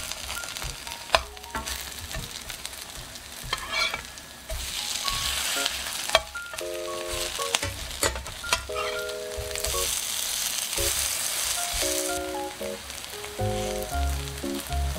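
Napa cabbage pancakes sizzling in a pan of perilla oil and cooking oil as they are flipped and pressed down, the sizzle swelling about five seconds in and again around ten seconds. A spatula clicks against the pan a few times. Light background music plays along.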